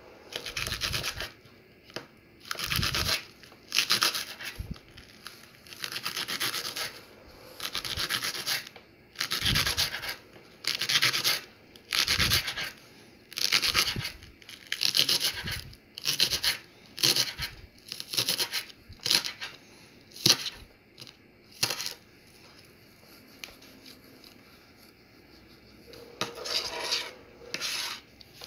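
Kitchen knife slicing a green onion on a plastic cutting board: a crunchy cut ending in the blade scraping the board, about once a second. The strokes turn shorter and quicker about halfway through, then stop for a few seconds before a few more cuts near the end.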